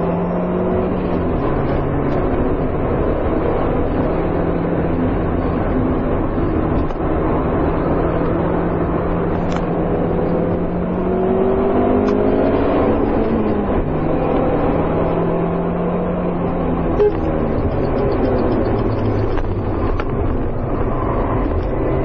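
Car engine sound running and revving, its pitch climbing and then dropping back in steps several times, like gear changes. A short click about five seconds before the end.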